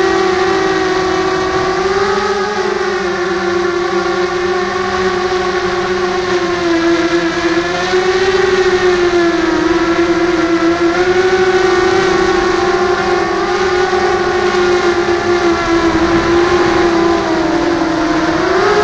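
Motors and propellers of a Millennium Falcon model FPV drone whining steadily in flight, close to the onboard camera, the pitch wavering up and down with throttle and rising briefly near the end.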